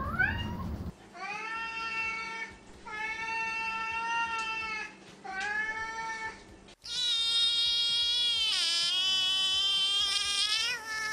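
Siamese cats meowing: a short rising cry, then three long drawn-out meows, then one higher, wavering call of about four seconds from a Siamese kitten.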